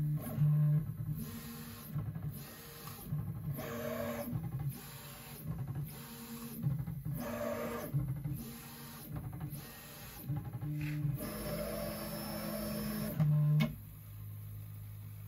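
Prusa MK3S 3D printer's stepper motors humming through a string of short moves, stop and go, as the bed and print head run the automatic bed-leveling routine before a print. A longer move comes near the end, then a steadier low hum.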